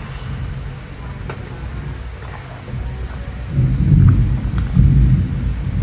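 A child chewing steamed chicken momo close to the microphone: a low muffled rumble that swells into two heavier surges in the second half.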